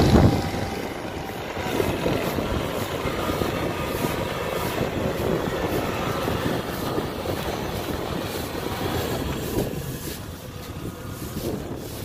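Kubota DC-70 combine harvester running steadily under load while cutting and threshing standing rice: a continuous drone of its diesel engine and threshing machinery.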